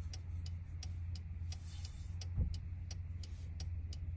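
Car hazard-light flasher ticking steadily, about three ticks a second, over a low steady hum inside the car, with a soft thump about two and a half seconds in.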